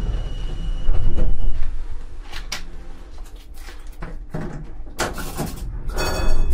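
ČKD Tatra T6A5 tram's doors working: a run of clunks and knocks, with a steady high tone that cuts off about one and a half seconds in and a louder clatter about five seconds in.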